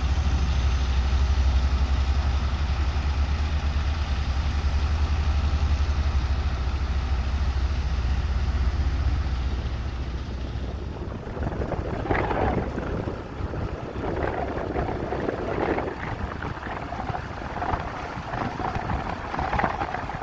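Heavy construction machine's diesel engine running steadily with a deep rumble, then fading away about halfway through. Irregular clattering noises follow in the second half.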